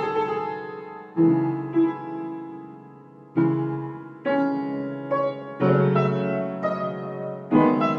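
Piano playing slow chords in C-sharp minor, a new chord or note struck every second or so and left to ring and fade.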